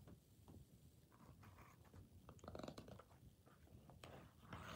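Near silence with faint handling of product packaging: small scattered clicks and brief scraping as hands pick and pull at the box to get it open.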